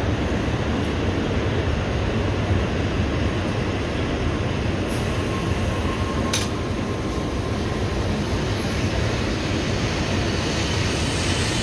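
N700-series Shinkansen bullet train rolling slowly along the platform as it pulls into the station, a steady rumble and hiss of wheels and running gear. Two sharp clicks come about five and six seconds in.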